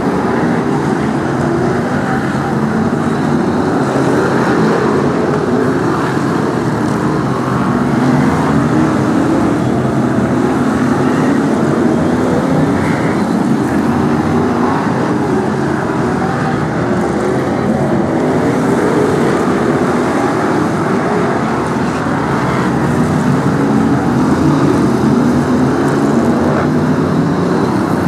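Several BriSCA F1 stock cars' V8 engines running on the track, a loud continuous drone whose pitch rises and falls as the cars accelerate and ease off around the oval.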